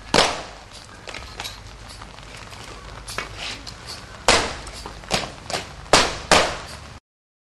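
A series of sharp, irregular knocks from ceremonial drill movements during a guard mounting, the loudest clustered near the end; the sound cuts off abruptly shortly before the end.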